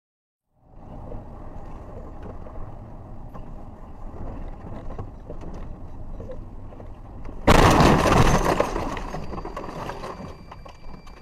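Steady vehicle road noise, then a loud sudden crash of a car collision about seven and a half seconds in, dying away over a second or two.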